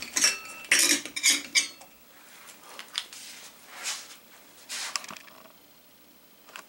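Metal tools and small parts clinking and rattling against the TV's sheet-metal rear chassis: a cluster of sharp clinks in the first two seconds, a few with a brief ring, then a couple of softer knocks. This is a Phillips screwdriver bit and screws being handled.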